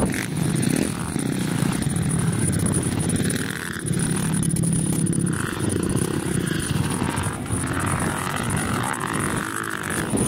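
A small off-road engine running, its pitch and level rising and falling.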